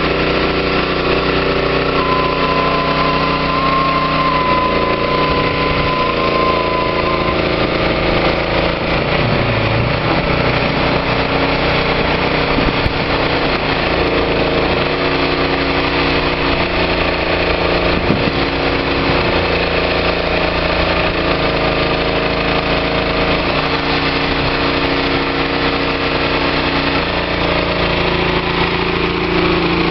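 A farm tractor's engine and a small engine on the boat trailer running steadily, their pitch stepping up and down a few times.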